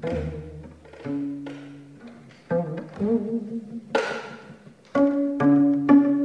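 Slow instrumental music of plucked and bowed strings: held, wavering notes, with several sharp plucked strokes in the second half.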